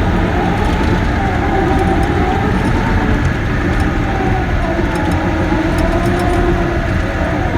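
Caterpillar D6K bulldozer's diesel engine running steadily as the machine works, with a whine whose pitch wavers slowly up and down.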